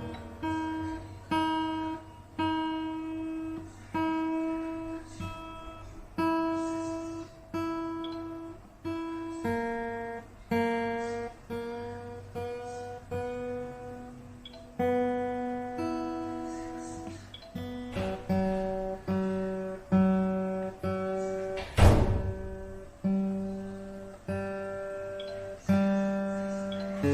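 Acoustic guitar picked in a slow melody of single notes and small chords, each ringing and fading before the next. Near the end comes one louder, sharper struck chord.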